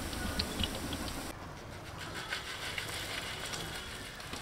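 Hot oil sizzling with scattered pops as curry leaves and onion pakoda bits deep-fry. About a second in the sizzle cuts off, giving way to a quieter hiss with light clicks as crisp fried pakodas are tipped from a metal scoop onto a steel plate.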